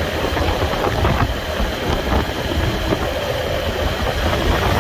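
Motorcycle engine running at a steady cruise of about 60 km/h, with road and wind noise.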